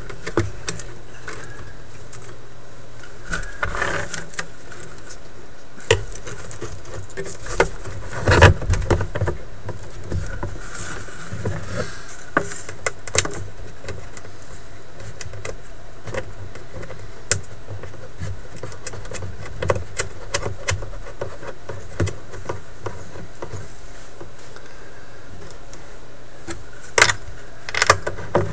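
Scattered clicks, knocks and rattles of hands handling a tube record player's chassis and wooden cabinet while it is fitted back in, with a busier cluster about eight seconds in and again near the end, over a steady low hum.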